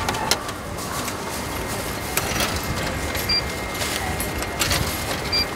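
Coins being handled and fed into the coin slot of a drink vending machine: a few light clicks and clinks, with two short high beeps, over steady street traffic noise.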